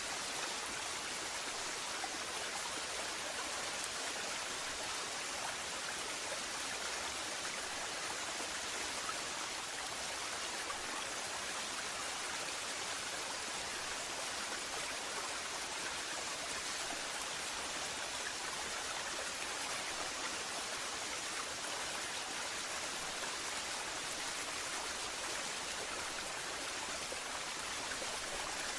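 Waterfall: water falling and rushing in a steady, even hiss with little deep rumble and no breaks.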